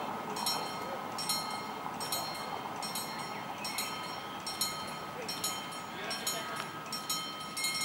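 Level-crossing warning bell striking in a steady rhythm, about one ringing stroke every 0.8 seconds, with the barriers down, over a faint steady background rumble.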